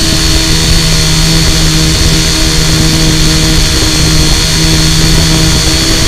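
Multirotor drone's electric motors and propellers running steadily in flight, heard close up from a camera mounted on the drone: a constant hum with a high whine above it.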